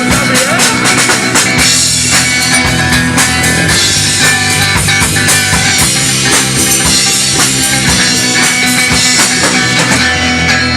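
Rock band playing a guitar-and-drum-kit passage with a steady beat, no singing heard.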